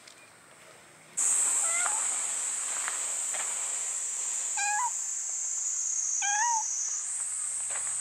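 Cicadas buzzing in a loud, steady high chorus that starts suddenly about a second in, with a cat meowing three times over it.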